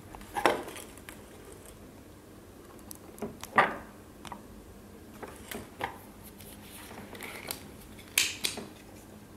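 Scattered light clicks and knocks of a circuit board and soldering tools being handled during soldering, about half a dozen in all, the loudest about three and a half seconds in.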